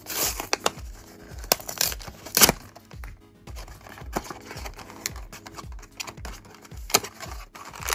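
Background music with a steady beat, over the handling of a small cardboard blind box: its sticker seal peeled away and the card flaps opened, with several sharp tearing and rustling strokes, the loudest about two and a half seconds in.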